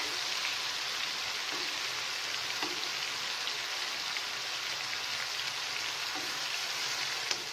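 Marinated chicken pieces sizzling steadily as they shallow-fry in a little oil in a non-stick pan, cooked just through rather than deep-fried.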